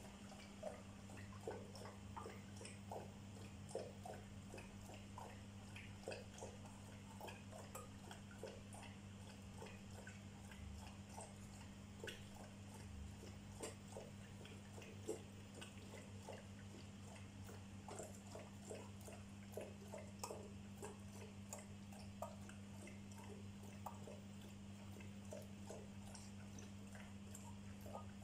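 Dogs eating and drinking from bowls on a tiled floor: faint, irregular little clicks and clinks, over a steady low hum.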